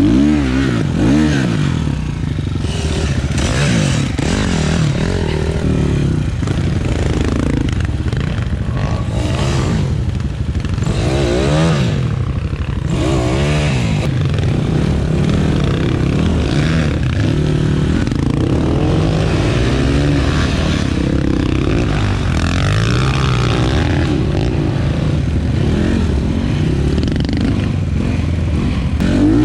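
Enduro dirt bike engines, including the rider's Avantis 250 Pro, revving up and down in short throttle bursts, their pitch rising and falling again and again, with clattering and scraping from the bikes.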